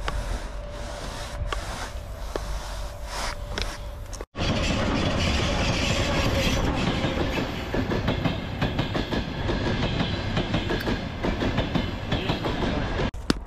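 An electric-locomotive-hauled passenger train passing close by: a steady loud rush of wheels running on the rails and coaches rolling past. It starts abruptly about four seconds in and breaks off just before the end. Before it there is only quieter outdoor noise with a few light knocks.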